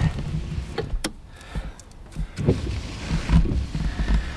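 Honda Civic EK being started from cold after standing unused for a long time: a click from the ignition about a second in, then the starter motor turns the engine over and it fires up without the fuel being primed.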